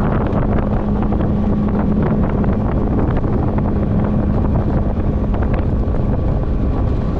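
Boat motor running steadily while the boat is under way, with a steady hum that fades out about six seconds in. Wind is buffeting the microphone.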